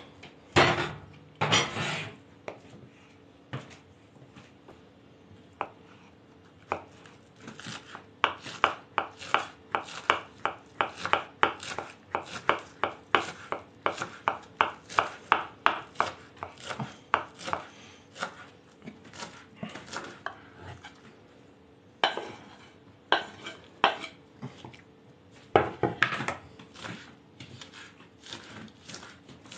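Kitchen knives chopping boiled potato and green onions on wooden cutting boards: a steady run of blade knocks on the board, about two or three a second, broken by a few short pauses.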